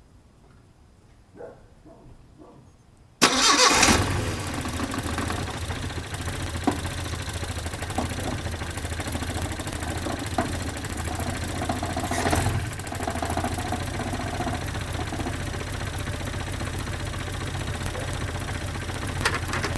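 Datsun 510's L20B four-cylinder engine starting about three seconds in with a brief loud burst, then settling into a steady idle.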